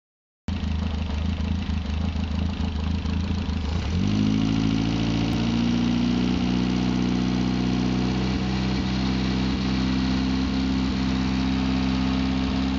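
Triumph Spitfire 1296cc four-cylinder engine running steadily. About four seconds in, the engine speed rises quickly and then holds steady at a higher speed.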